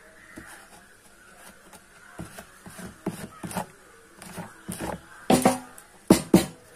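A metal blade scraping a dry coconut shell in short, irregular strokes, clearing off the last husk fibre. The strokes start about two seconds in and grow louder, the sharpest few coming in the last second and a half.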